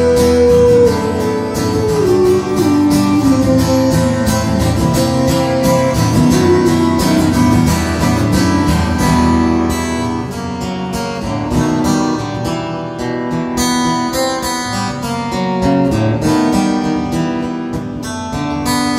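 Acoustic guitar strummed in a steady rhythm, an instrumental passage of a song played solo.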